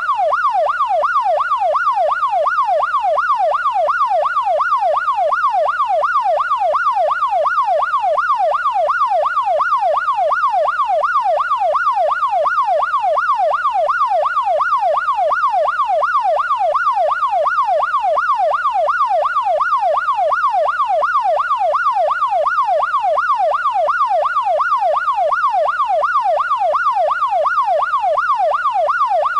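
Police siren sweeping rapidly and evenly up and down, about two rises and falls a second, without a break.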